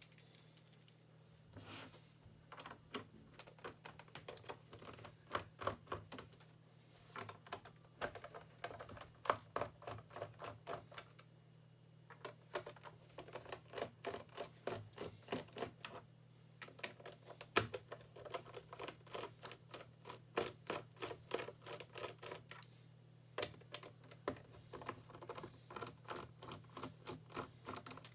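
Typing on a Logitech ERGO K860 split keyboard: quick runs of key clicks broken by short pauses, over a steady low hum.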